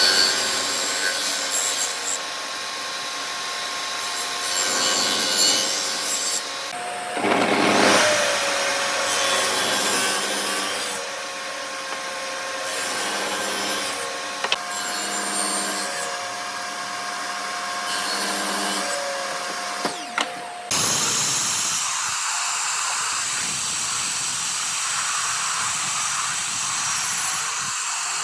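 A power tool running against wood: a steady motor whine under a rasping, rubbing noise that shifts now and then. The sound changes abruptly about two thirds of the way in, the low motor tones dropping away and leaving a higher rasping noise.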